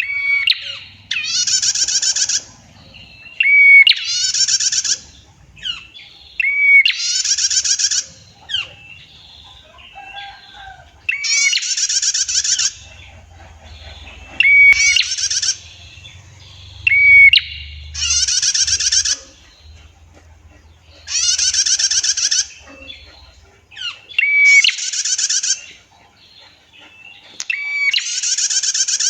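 Female prinia (prenjak) calling: about nine long, rapid, buzzy trills of roughly a second each, repeated every few seconds. Each trill is preceded by a short, clear, rising note, with faint chips in between.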